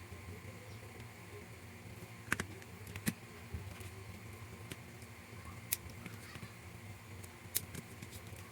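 Four light, sharp clicks of small model parts or tools being handled during scale-model assembly, over a steady low hum.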